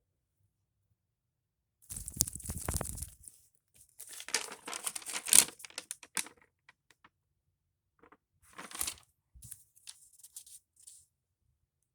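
Paper rustling and crinkling in several irregular bursts, as sheets of drawing paper are handled and turned.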